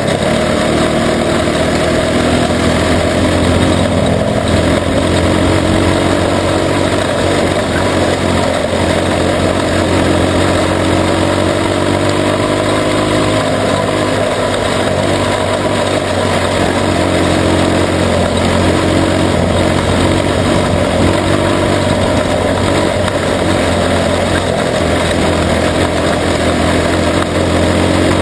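Junior sprint car engine running continuously, heard close up from a camera mounted on the car, its pitch rising and falling slowly as the throttle is worked around the dirt oval.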